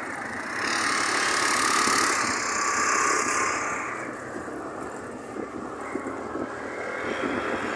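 Vehicle engine and road noise, swelling about half a second in and easing after about four seconds into a lower steady rumble.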